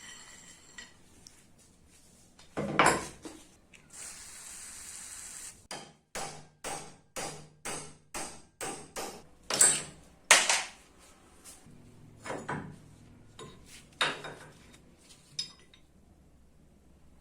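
Hammer blows and clanks on the metal parts of a rusty drill holder. A burst of taps comes about two to three a second in the middle, with a short hiss before them and a few single clanks near the end.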